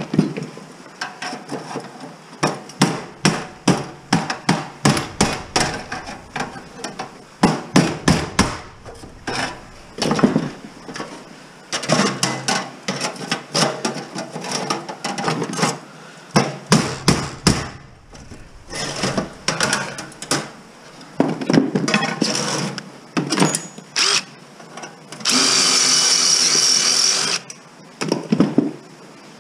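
Sheet-metal computer case being taken apart by hand: repeated sharp metal clanks, clicks and rattles as parts are pried and knocked loose. About 25 seconds in, a cordless drill runs steadily for about two seconds.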